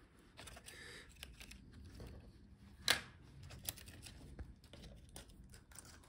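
Faint clicks and rustling of a laptop's internal video cable being slid out of its routing in the plastic and metal chassis, with one sharper click about three seconds in.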